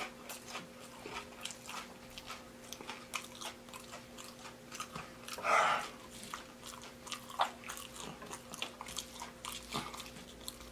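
Close-miked chewing of deep-fried, breaded baby back ribs: scattered crisp crunches and wet mouth clicks, with one louder burst about five and a half seconds in. A faint steady hum sits underneath.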